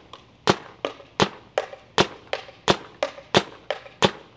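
Paintball marker with a Freak XL 8-inch barrel insert firing shot after shot in a steady rhythm, about three sharp pops a second.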